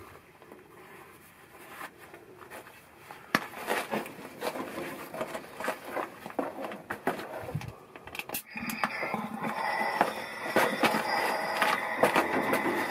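Scattered clicks, scrapes and rustles of someone moving about on dry ground and handling tools beside a truck axle, starting about a third of the way in and growing busier toward the end.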